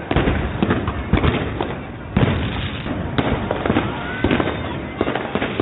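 Fireworks going off in quick succession: a dense run of sharp bangs and crackles, with louder bangs a little after two seconds and about three seconds in.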